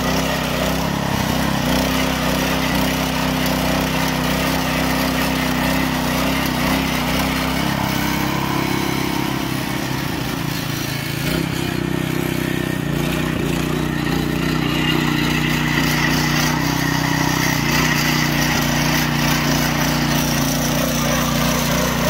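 Mini power tiller's small OHV petrol engine running steadily under load as its rotary tines till the soil between crop rows, dipping slightly in pitch and level for a few seconds near the middle.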